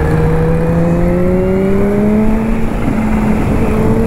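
Kawasaki Z H2's supercharged inline-four engine running under load as the motorcycle accelerates, its pitch rising slowly.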